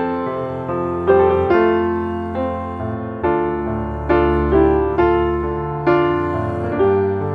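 Background piano music: sustained chords struck about once a second, each note fading after it is played.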